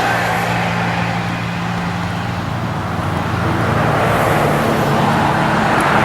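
Aircraft flying over, a steady low engine drone whose pitch shifts slightly about halfway through.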